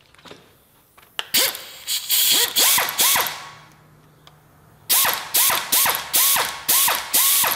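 Hand ratchet clicking in two quick runs of about four clicks a second, with a short pause between them. It is turning a deburring tool in a drilled-out broken exhaust manifold stud in an LS cylinder head, taking off the sharp edges so the stud can be extracted.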